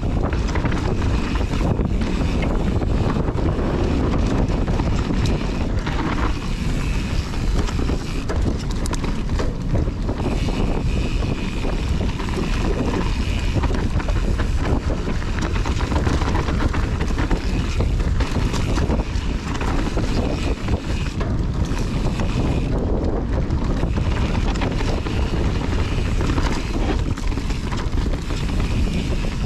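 Wind buffeting a chest-mounted GoPro on a descending mountain bike, over the steady rumble of tyres on the dirt trail and the quick rattles and knocks of the Kona Process 153 over rough ground.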